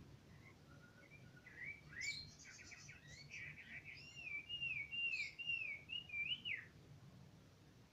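Caged Chinese hwamei singing: scattered rising whistled notes build into a varied phrase, then a run of about six repeated down-slurred whistles that stops shortly before the end.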